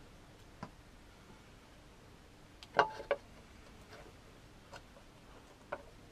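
Small metal parts being handled and fitted into a motorcycle's front sprocket and clutch area: a few faint clicks, and two sharper metallic clinks about three seconds in, the first briefly ringing.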